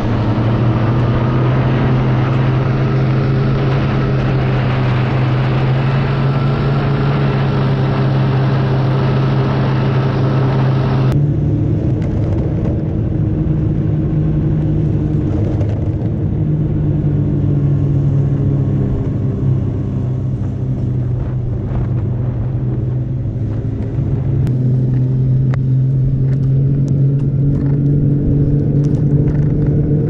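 Snowmobile engine running steadily under way, with wind rushing over the microphone for about the first eleven seconds. The engine note sags slightly a little past the middle and picks up again near the end.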